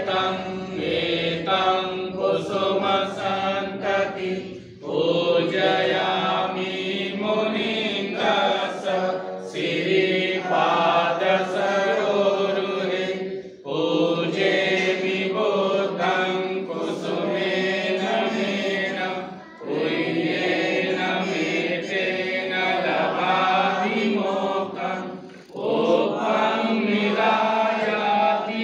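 Buddhist devotional chanting: long drawn-out voiced phrases, each broken by a short pause for breath about every five seconds.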